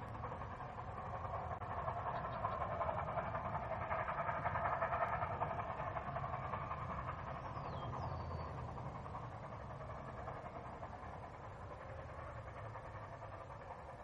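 Steam train running along the track, growing to its loudest about four to five seconds in and then slowly fading away.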